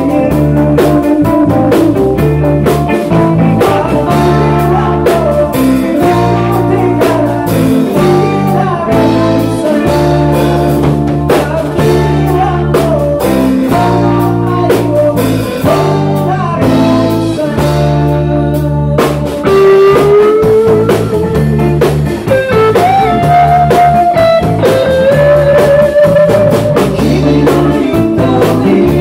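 A rock band playing live: male lead vocal over electric guitars, including a Rickenbacker, with bass guitar and drum kit keeping a steady beat.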